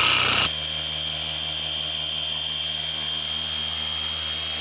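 Handheld orbital polisher with a foam pad running on a truck's window glass to take off hard water spots. A steady motor hum with a thin high whine; about half a second in, the sound drops to a quieter, even run.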